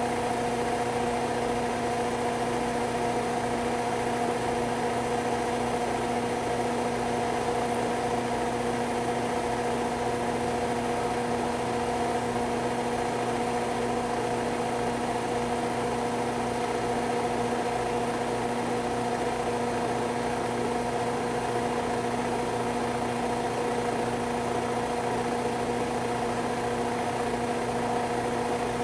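Steady machine hum with several constant tones, unchanging in pitch and level.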